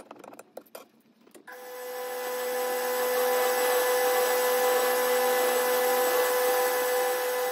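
A few light clicks as tin snips cut a small metal clip. Then, about a second and a half in, a small metal lathe starts running with a steady whine and rough cutting noise as its tool turns the threaded end of a bolt down to a taper.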